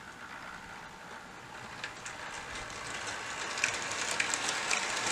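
HO-scale Bachmann Southern Pacific GS-4 model steam locomotive and its train running along the track, a rolling rumble that grows steadily louder as it nears and passes, with occasional clicks.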